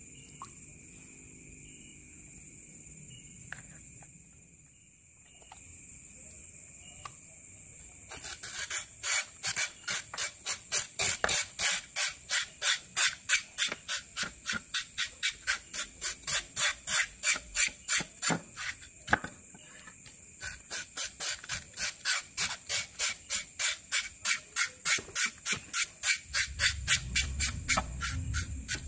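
Knife scraping along a catfish's skin on a wooden cutting board: rapid, even strokes about three to four a second, starting about eight seconds in, with a brief break near the middle. Before that there are only faint clicks of the fish being handled.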